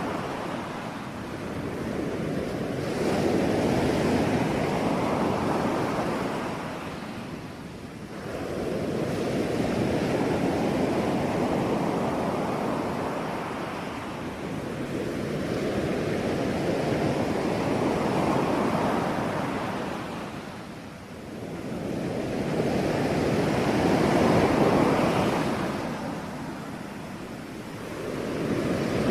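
Ocean waves breaking on a shore in a continuous wash of surf, each wave swelling and receding every five to seven seconds.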